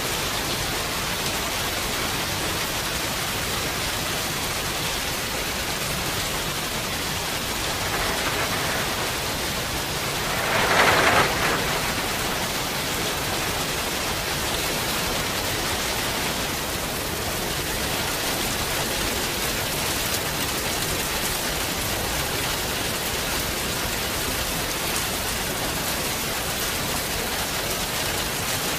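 Steady rain, a dense even hiss, with a brief louder swell about eleven seconds in.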